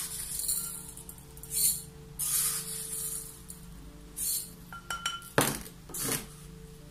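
Small dry seeds poured and spooned from a little glass jar into a glass bowl: several short rattling pours, then a spoon clinking against the glass a few times, with brief ringing, about five seconds in.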